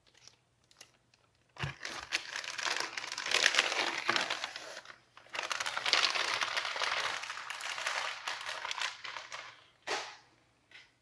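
Plastic packaging crinkling and rustling as a boxed product is pulled out of a plastic mailer bag and handled. There are two long stretches of crinkling with a short break in between, then a brief rustle near the end.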